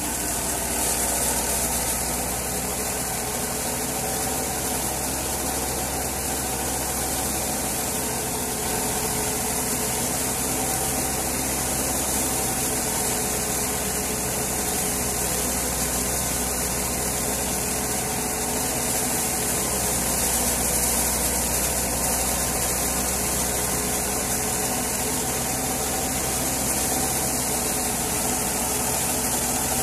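Tractor-driven Hudabiah wheat thresher running steadily, its drum, belts and pulleys making a continuous mechanical noise with a strong hiss, over the steady sound of the tractor engine driving it.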